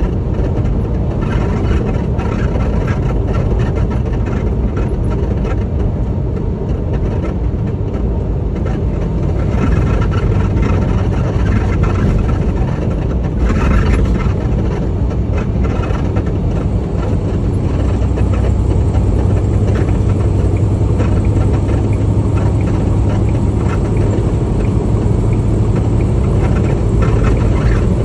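Semi truck driving on the highway: a steady low engine and road rumble that grows somewhat louder about ten seconds in.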